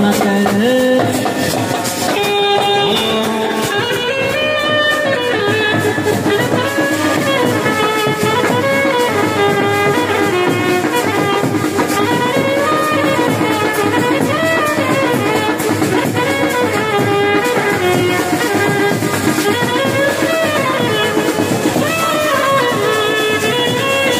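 Indian baraat-style brass band playing a melody on trumpets, with drums beating steadily underneath.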